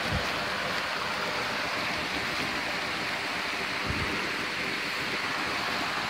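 Steady rush of a flooded creek running high and fast after heavy rain, mixed with rain falling on an umbrella overhead. Two soft low thumps, just after the start and about four seconds in.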